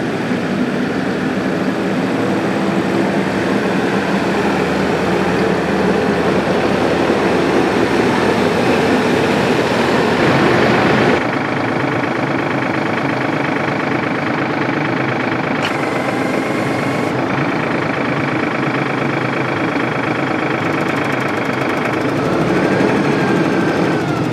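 Massey Ferguson 4707 tractor's three-cylinder turbo diesel engine running as the tractor drives, growing slightly louder. About eleven seconds in, the sound changes abruptly to the engine running steadily close at hand.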